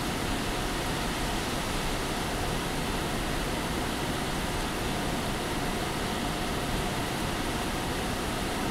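Steady background noise of an empty, glass-enclosed shinkansen platform: an even rushing hiss with a faint steady hum and no train passing.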